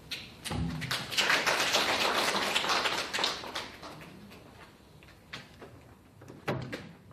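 Audience applauding, swelling about a second in and fading away after a few seconds, followed by a few single knocks near the end.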